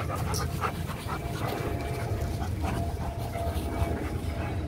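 Large dogs panting hard and scuffling as they play, over a steady low rumble.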